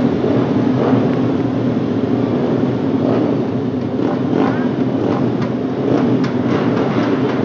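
Several motorcycle engines running together on a race circuit, a steady loud drone.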